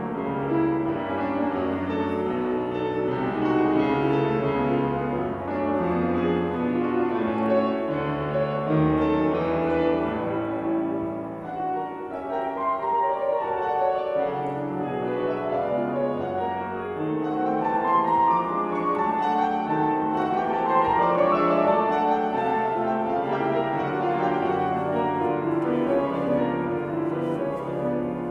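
Grand piano played solo: a continuous flow of overlapping notes and chords.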